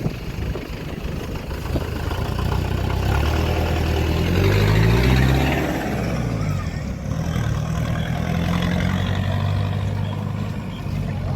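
A vehicle engine running close by, rising in pitch to its loudest about five seconds in, then running steadily.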